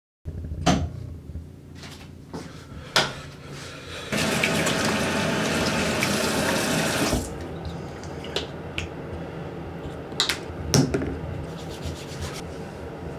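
A water tap running into a sink for about three seconds, with sharp clicks and knocks before and after it.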